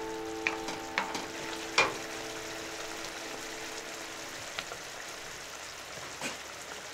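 Chicken curry sizzling and simmering in a frying pan, with a wooden spatula stirring and knocking against the pan a few times in the first two seconds. A couple of sharp pops come later. Background music fades out about a second in.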